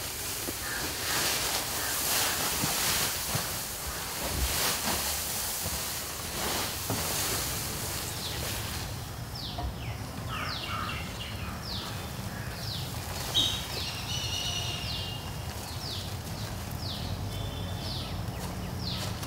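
Dry straw chaff (bhusa) rustling and pouring as cloth sacks are emptied onto a heap, a busy crackling hiss. After about nine seconds this gives way to a bird calling over and over in short falling notes, over a low steady rumble.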